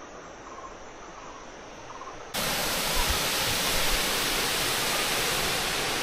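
Faint insect chirping, cut off about two seconds in by the loud, steady rush of a waterfall.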